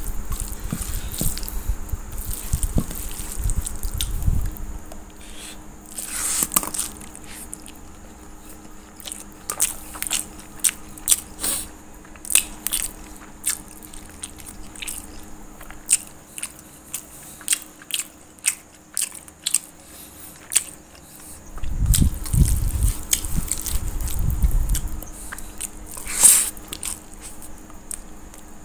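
Close-up chewing and mouth smacking as a person eats a handful of rice and fried vegetables by hand, with many short wet clicks. Low thumps of handling come near the start and again about three-quarters through.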